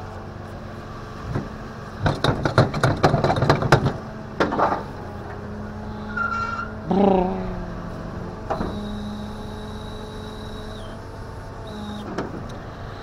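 Tow truck's rear wheel-lift gear being handled: a burst of metal clattering and rattling for about two seconds, a short squeal about halfway through, then a steady high whine, all over the steady hum of the truck.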